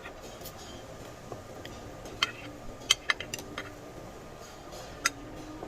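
Scattered light clinks and taps of cutlery against dishes, half a dozen or so spread through the stretch, over a steady low restaurant background.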